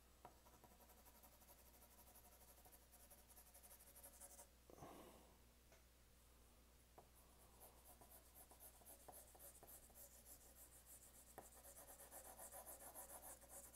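Faint scratching of a 4B graphite pencil shading on paper in quick back-and-forth strokes. The strokes pause for a few seconds after about four and a half seconds, with only a few light ticks, then resume and grow busier toward the end.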